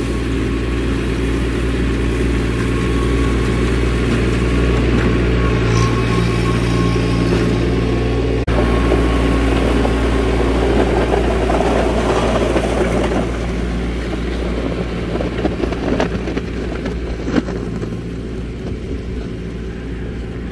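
Mahindra Max 25 XLT compact loader tractor's diesel engine running steadily under load while dumping and spreading gravel, with gravel pouring out of the loader bucket at the start. The engine grows a little quieter near the end as the tractor drives off.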